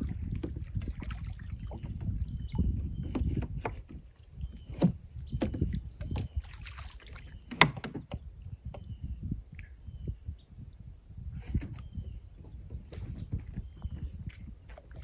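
A kids' kayak being paddled out: water sloshing and the paddle knocking against the hull, with a string of sharp knocks, one much louder about halfway through. A steady high insect drone and small repeated chirps run underneath.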